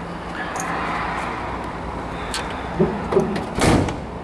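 Shuffling, then a car door shut with a single thud near the end: the heavy steel door of a 1963 Chevrolet Impala.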